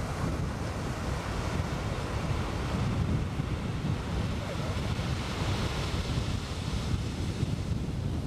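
Wind buffeting the microphone over waves breaking in the shore surf: a steady, heavy low noise with no distinct events.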